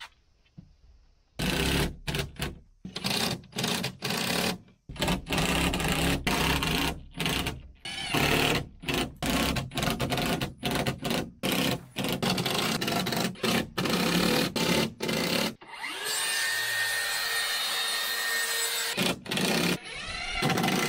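Cordless drill driving screws into a plywood wall panel in many short stop-start bursts, then one longer run of about three seconds near the end.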